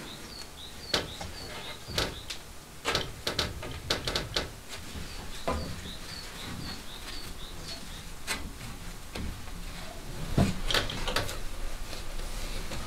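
Sharp wooden clicks and knocks from a wooden hand loom as the wool warp threads are handled and tied. A small bird chirps in two quick runs of short, falling notes, one near the start and one about midway.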